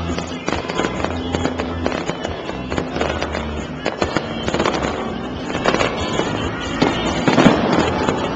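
Fireworks bursting in quick, uneven succession, with many bangs and crackles that grow denser and louder about seven seconds in, over music with steady bass notes playing along with the show.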